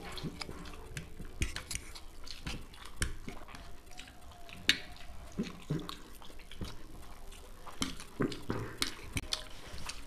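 Close-miked eating: wet chewing and slurping of chowmein noodles, with forks clicking and scraping on plates in short, irregular sounds and one sharp click about halfway through.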